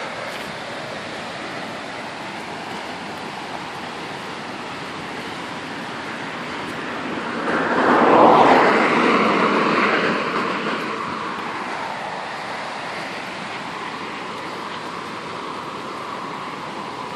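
Steady rushing wind noise, swelling louder for about four seconds near the middle and then settling back.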